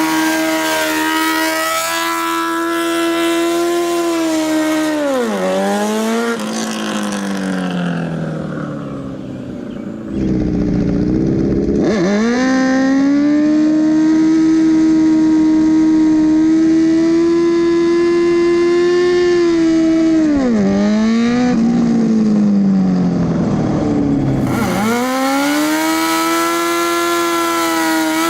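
Sportbike's inline-four engine at high revs through its exhaust: the note holds steady and high, drops away as the revs fall, then climbs again, twice over.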